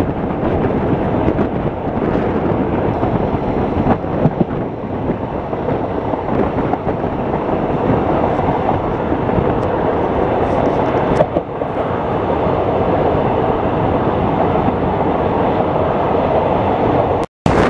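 ICF passenger coach running along the track: a steady, loud rumble of wheels on rail with a few faint clicks. The sound cuts out abruptly for a moment near the end.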